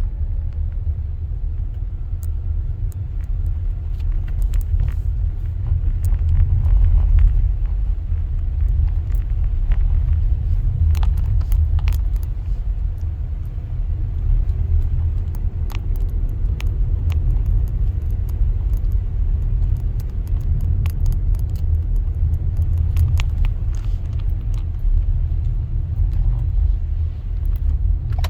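Car driving over a thickly iced road: a steady low rumble of tyres and engine, with scattered sharp clicks and crackles.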